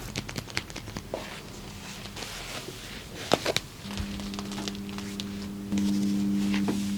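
Sharp clicks and taps of hands working on the body during a massage. About four seconds in, a steady low held musical tone comes in and grows louder near the end.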